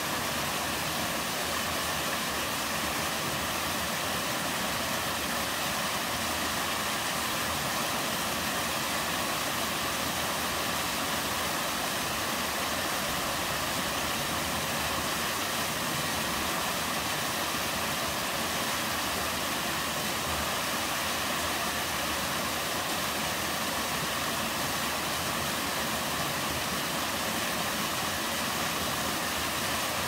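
Small mountain waterfall pouring down a rocky chute into a plunge pool, a steady, unbroken rush of falling water.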